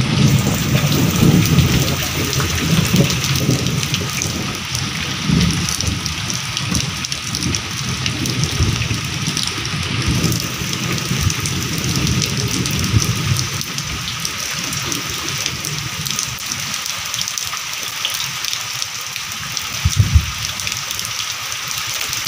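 Steady rain falling, with low rumbling through the first half and a single sharp thump near the end.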